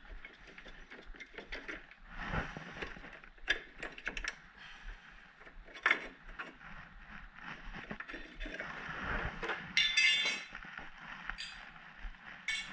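Hand tool and metal parts clicking and clinking as small bolts are backed out of a mower's blade-hub plate, with a quick run of ratchet-like clicks about ten seconds in.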